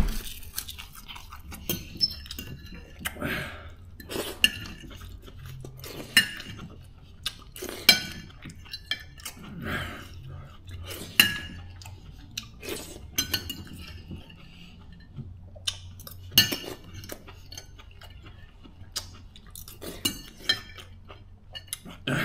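Metal fork clinking and scraping against a ceramic plate while food is picked up, in sharp, irregular clinks a second or a few seconds apart.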